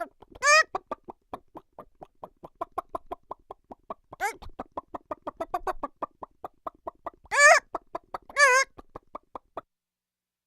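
Cartoon chicken sound effect: a rapid, even run of short clucks, about five a second, broken by four longer, louder warbling squawks. It stops about a second before the end.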